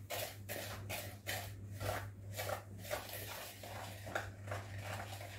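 Wire whisk beating softened butter and sugar in a bowl: a rhythmic scraping swish of about three to four strokes a second.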